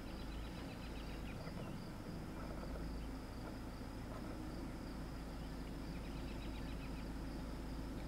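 Outdoor field ambience: a steady high insect drone, with faint bird chirps near the start and again later, over a low rumble.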